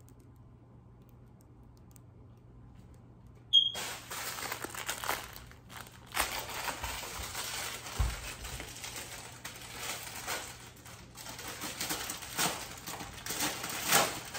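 Plastic packaging crinkling and rustling as it is handled, starting a few seconds in after a sharp click, with a low thump about midway.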